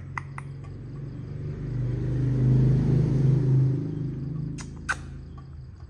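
A motor vehicle's engine passing by, its drone swelling to its loudest about two to three and a half seconds in and then fading, with a few sharp clicks near the start and near the end.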